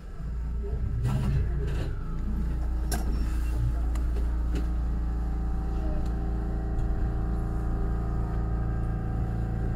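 Shinano Railway SR1 series electric train's traction equipment coming on as it pulls away from a station: a loud low hum with steady electric tones sets in suddenly and holds, with a few sharp clicks and knocks in the first few seconds.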